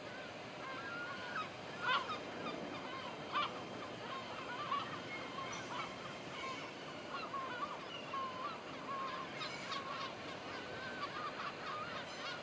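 A flock of geese honking repeatedly in overlapping calls, with a few sharp clicks early on.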